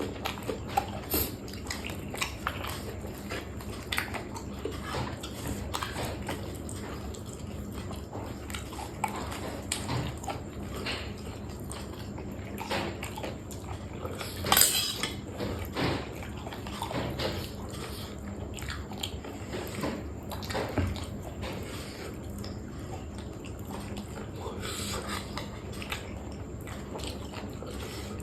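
Close-up eating sounds: chewing and biting into food, with a steady run of small clicks from cutlery on dishes. There is one louder clatter about halfway through.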